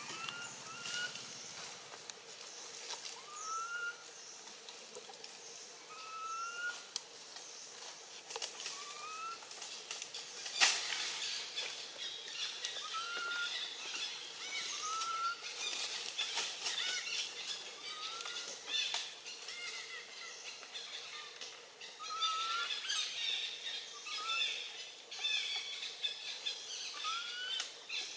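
A short rising animal call repeated about a dozen times, every two seconds or so, over a background of fainter chirping and hiss. One sharp click sounds about ten seconds in.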